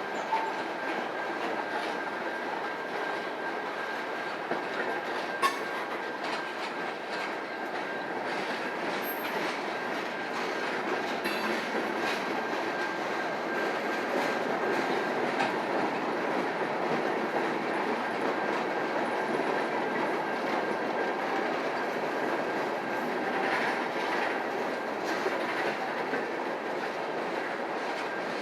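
Train rolling by: steady rumble of steel wheels on the rails with clicking over rail joints. A thin, steady wheel squeal runs through about the first half.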